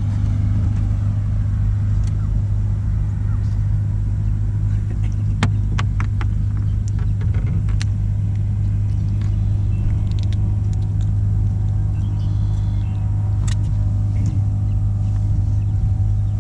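Steady low mechanical hum, with a few sharp clicks between about five and eight seconds in and one more near the end.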